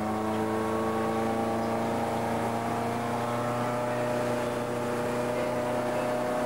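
Motorboat engine running at speed while towing inflatable rings. Its pitch rises slightly over the first few seconds, then holds steady over the rush of water.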